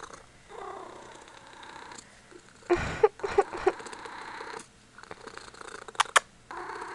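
Ragdoll kitten purring while being stroked, with a louder burst of noise about three seconds in and two sharp clicks near the end.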